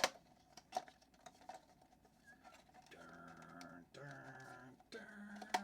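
Small cardboard blind box being opened by hand, with scattered clicks and crinkles of packaging. In the second half a man hums in three short held tones.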